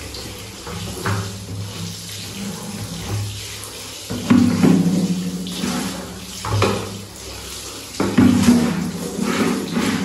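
Water pouring and splashing out of a plastic bucket as it is tipped and rinsed over a tiled floor, with a few sharper knocks and splashes of the bucket being handled.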